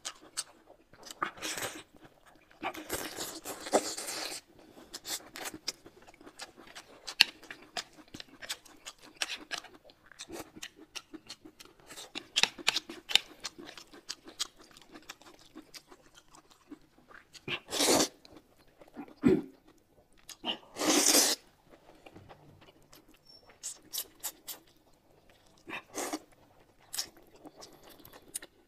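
Close-miked eating: irregular chewing and crunching with many small clicks, broken by a few louder noisy rustling bursts, two of them close together late on.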